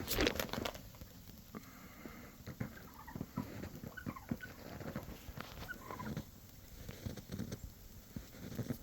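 Wild turkeys foraging in snow: scattered soft crunches and taps, with a few brief, quiet turkey clucks.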